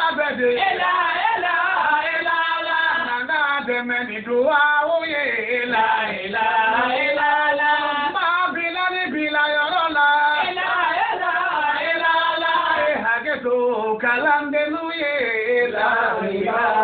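A man's voice chanting without accompaniment, in long, drawn-out melodic phrases with held notes and short pauses for breath.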